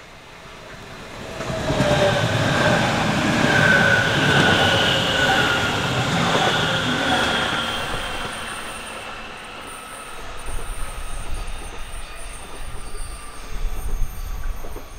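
Hamburg S-Bahn class 474 electric train running past on a curve, with a squeal of several high tones that slowly drop in pitch, loudest from about two to seven seconds in. The noise then eases to a lower, uneven rumble with a few knocks.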